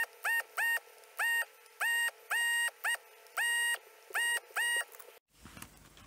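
Electronic beeps, all at one pitch, in an irregular pattern of short and longer tones over a faint steady hum; they cut off abruptly about five seconds in.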